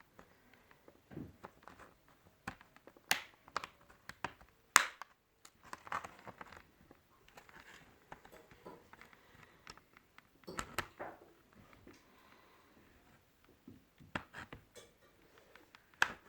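Scattered sharp clicks, taps and short scrapes of plastic laptop parts and small tools being handled during disassembly of an HP ProBook 430 G5, with a few louder snaps.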